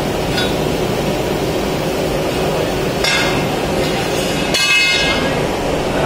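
Steady mechanical noise from a running gas carburising furnace and its workshop machinery, with a couple of short metallic clinks about three seconds in and again near five seconds.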